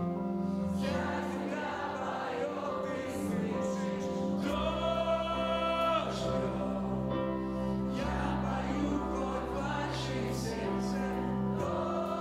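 Live worship song: a male lead singer over a rock band of electric guitars, keyboard, bass and drums with cymbals, and the congregation singing along. Long held sung notes over bass notes that change every few seconds.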